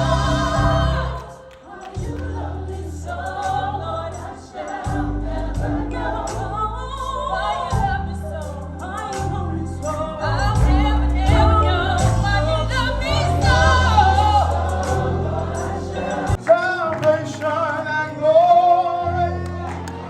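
Live gospel singing: a choir of voices over low held bass notes from the band. About three-quarters of the way through the bass drops out and a single voice carries on alone with wavering vocal runs.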